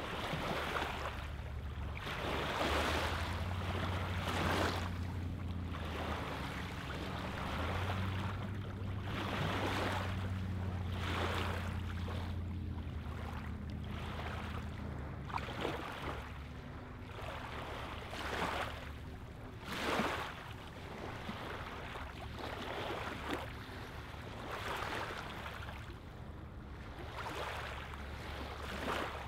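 Small lake waves lapping on a pebbly shoreline, washing in and out in repeated swells every second or two.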